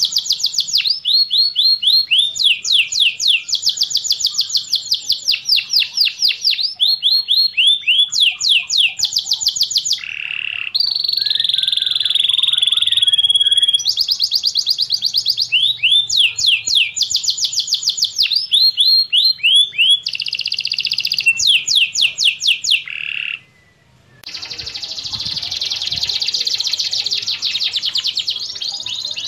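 Domestic canary singing: long rolling trills of rapid repeated notes, each run at a different pitch, with a buzzier stretch of held notes in the middle. The song breaks off briefly about 23 seconds in, then resumes as a dense, fast trill.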